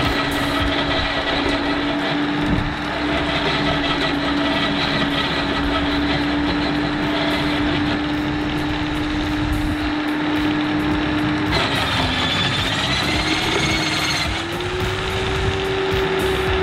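Ryobi RSH3045U electric branch shredder running with a steady motor hum and cutter noise. About 12 s in the pitch dips briefly, then settles higher.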